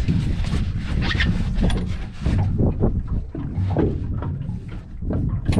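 Handling noise while a spurdog is unhooked in a small boat: short knocks and rustles over a steady low rumble.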